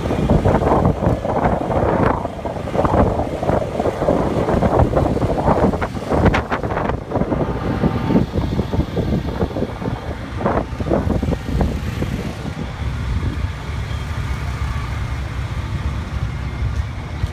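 Fire truck engine running, a steady low rumble that stands out clearly in the last few seconds. Over it comes irregular rustling and crackling, heaviest in the first half.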